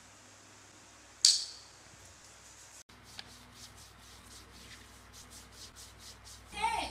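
A short sharp squirt about a second in as lotion is squeezed from a plastic bottle into a palm, then faint, quick rubbing strokes of hands spreading the lotion over bare arms.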